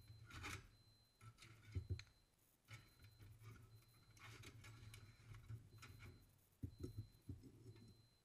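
Faint clinks and taps of steel tongs against a knife blade as it is handled during heat treating, with a few sharper clicks about half a second in, near two seconds, and a cluster near the end, over a low hum.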